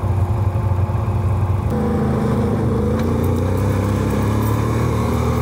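Can-Am Renegade 1000R quad's V-twin engine running. Its note changes about two seconds in and then climbs steadily as the quad pulls away.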